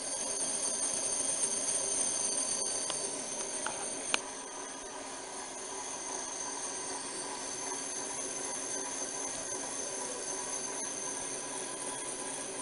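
Cutex TC-38A knit tape cutter running: a steady mechanical whir with a thin, constant high whine as its rotary blade slits knitted fabric into tape that winds onto the roller. A single sharp click comes about four seconds in.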